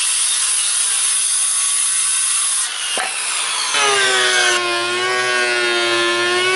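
Hitachi circular saw cutting through a pine board. About three seconds in, a DeWalt thickness planer takes over, running with a steady whine.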